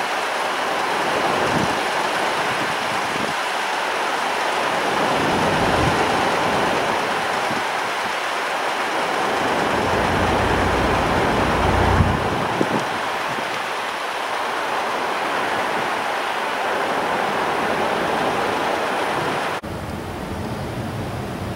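Strong wind blowing across the microphone: a steady rushing noise with low rumbling gusts every few seconds. The sound drops and changes abruptly near the end.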